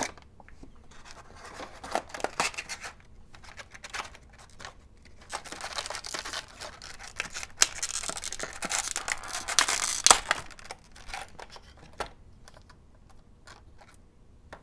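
Clear plastic blister packaging crinkling and crackling as a model locomotive is worked out of its tray, with sharp plastic clicks. The crackling is densest in a long stretch from about five to ten seconds in, and thins to scattered clicks near the end.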